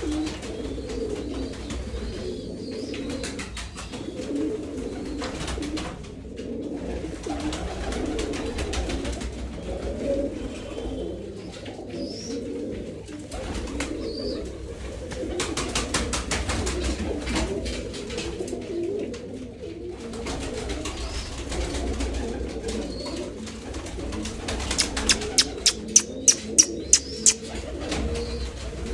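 A flock of domestic pigeons cooing, many low coos overlapping without a break, with scattered soft clicks. Near the end comes a quick run of about nine sharp claps.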